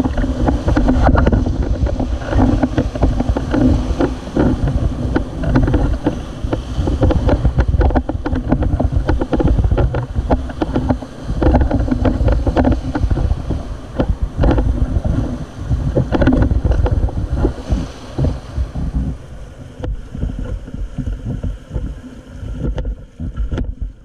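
Whitewater rapids rushing and splashing against an inflatable raft as it runs through them, with wind buffeting the microphone as a low rumble. The water noise eases off near the end.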